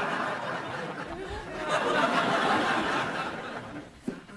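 Studio audience laughing, the laughter swelling again about two seconds in and then dying away near the end.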